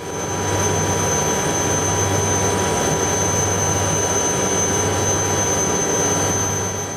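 Aérospatiale Alouette III helicopter's Turbomeca Artouste turboshaft running with a high steady turbine whine over rotor noise as the helicopter lifts off its skids into a hover.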